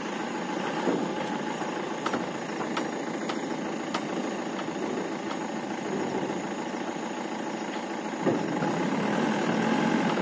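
Mahindra Bolero pickup's diesel engine running as the truck creeps along a rough dirt track, with a few sharp clicks and rattles from the body. The engine grows louder about eight seconds in.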